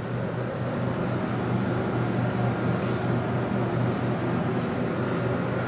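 A duster rubbing across a whiteboard as writing is wiped off, a steady scrubbing noise over a low steady hum.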